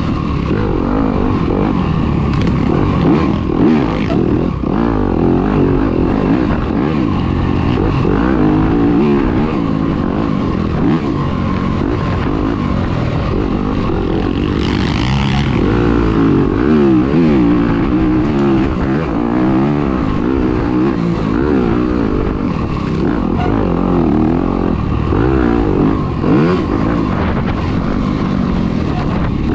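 Dirt bike engine heard up close from the bike itself, its pitch rising and falling over and over as the throttle is worked.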